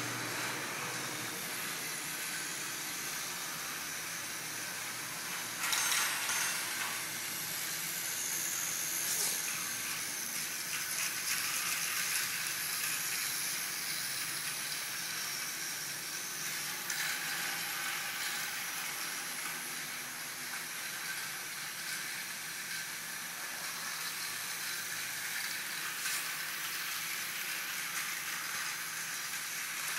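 Steady hissing noise, swelling briefly about six seconds in and again near nine seconds.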